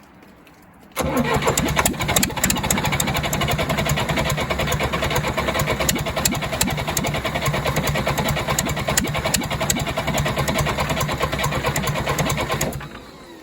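1963 Case 310F bulldozer's diesel engine turned over by its starter for about twelve seconds without firing, starting a second in and cutting off near the end. The injector lines are cracked open to bleed air, and fuel is being pushed out at the injectors.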